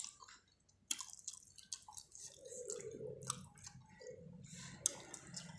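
Close-miked eating of spicy chicken feet: wet chewing and lip smacks, a quick run of small clicks starting about a second in.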